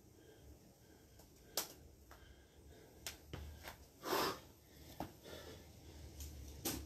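A person moving through bodyweight exercises on a floor mat: a handful of sharp taps and scuffs of sneakers and body against the mat and tiles, with a short puff of breath about four seconds in.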